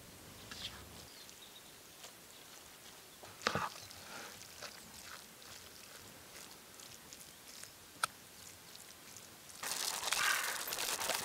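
A wooden spoon stirring a meat-and-fat filling in a wooden bowl: soft scrapes and clicks, with a louder knock about three and a half seconds in. Near the end, dry kibble pours into a steel dog bowl with a loud rattle.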